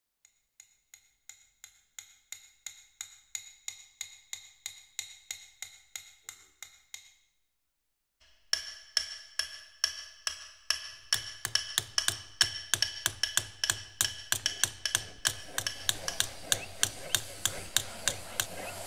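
Regular ringing metal-on-metal taps, about three a second, stopping about seven seconds in. After a short gap they return louder and quicker over a low hum and a hiss.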